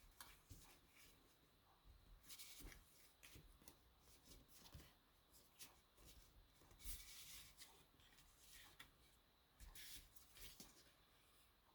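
Faint rustling and light taps of cardstock being handled and pressed down, with short scratchy rustles about two and a half, seven and ten seconds in.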